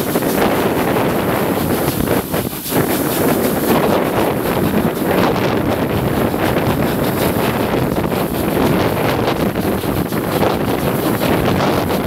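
Heavy wind buffeting the microphone held out of a moving train's carriage window, over the train's running noise.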